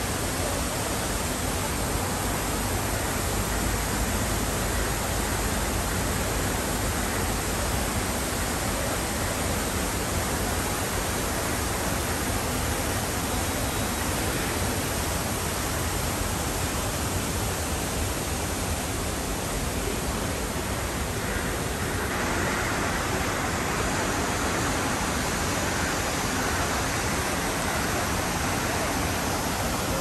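Steady rush of falling water: heavy rain pouring down together with the jets of an outdoor fountain splashing into its basin. Its tone shifts a little about two-thirds of the way through.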